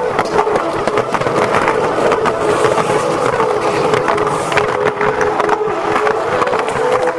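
Skateboard trucks grinding along a concrete ledge and the wheels rolling on concrete, with clatters of the board throughout.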